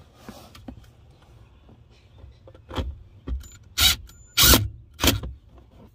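A run of loud clunks and knocks, about five of them in the second half, the loudest around four and a half seconds in, over a faint background.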